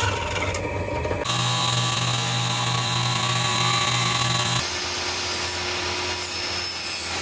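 Workshop power tools in quick succession: a bench drill press running against a plywood piece for about a second, then a benchtop bandsaw cutting a curved wooden part with a steady machine hum.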